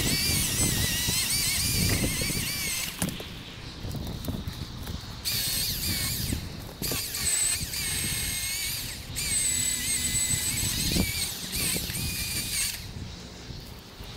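Milwaukee M18 Fuel cordless chainsaw cutting through a cedar trunk in four bursts, with short breaks between them. Its high electric whine wavers and dips under load.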